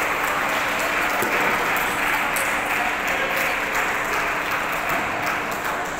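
Steady crowd din in a table tennis hall, with faint sharp clicks of table tennis balls from play.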